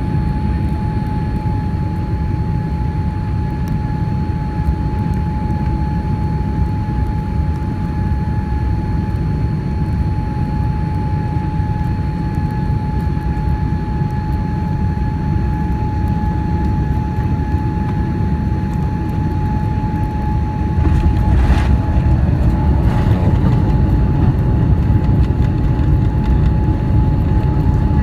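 Boeing 787-9 Dreamliner in flight on approach: a steady low rumble of engines and airflow with a steady whining tone over it. About three quarters of the way in the rumble grows louder, with two brief knocks.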